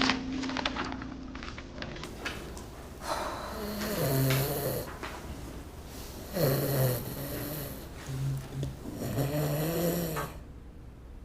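A person's voice making several drawn-out, wavering non-speech sounds with rough breathy noise, fading out near the end.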